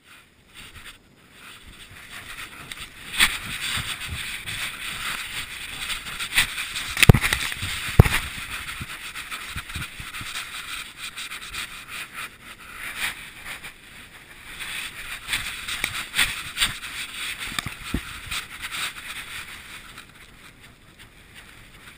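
Long grass rustling and scraping against a dog-mounted GoPro camera housing as the dog moves through it, with two sharp knocks on the housing about 7 and 8 seconds in. It is quieter near the end.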